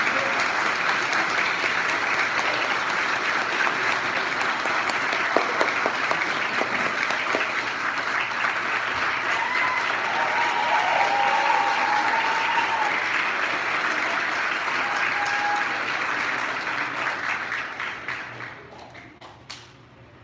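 Audience applauding at the end of a concert band piece, steady for most of the time and dying away near the end.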